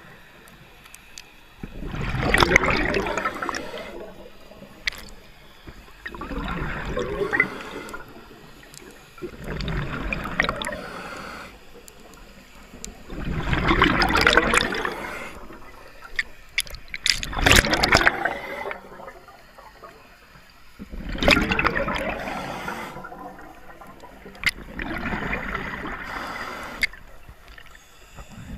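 Scuba breathing through a regulator underwater: a rush of exhaled bubbles about every four seconds, with a few sharp clicks between breaths.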